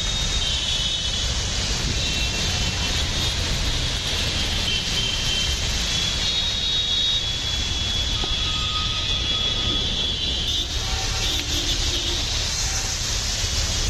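Heavy rain hissing steadily over the low rumble of traffic, as buses, cars and motorbikes drive through a flooded street.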